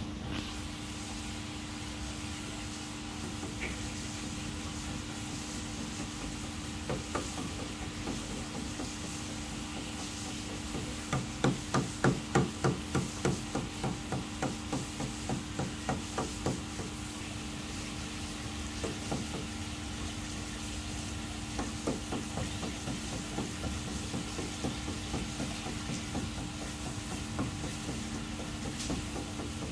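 Aquarium air pump humming steadily over a hiss of bubbling. About a third of the way in, a run of rapid knocks, about four or five a second, starts loud and fades out over some five seconds; a few single knocks come later.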